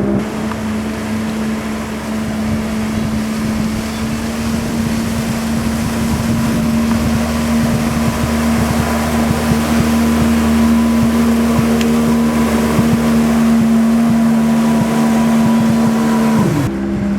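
Jet ski engine running at a steady high speed, with wind and water rushing past. Near the end the engine pitch drops as the throttle is eased off.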